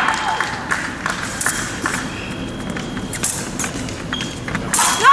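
Épée bout on the piste: scattered clicks and knocks of footwork and blade contact, with the end of a loud cry at the start and a fencer's loud yell, its pitch rising then falling, breaking out near the end.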